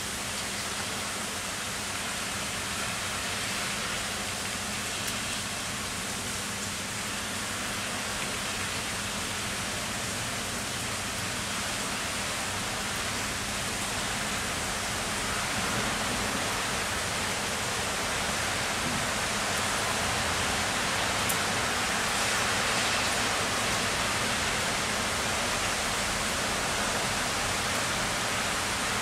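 Heavy rain falling steadily, a dense even hiss that grows a little louder about halfway through.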